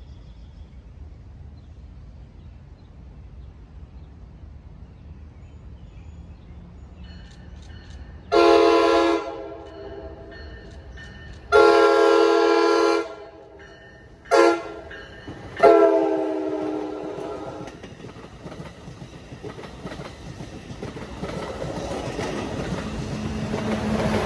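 NJ Transit commuter train's horn blowing four blasts, long, long, short, long, the grade-crossing signal. The last blast fades out. Then the train's rumble grows as it comes up close, with a steady engine note near the end.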